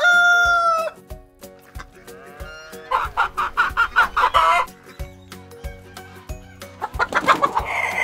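Rooster crowing three times: the held end of one crow just at the start, a full crow about three seconds in, and another near the end. Background music with a steady beat plays underneath.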